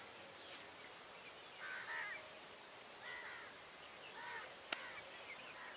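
Faint calls of distant birds at a riverside in the early morning: three or four short calls spread through, with a few tiny high chirps and a single sharp click near the end.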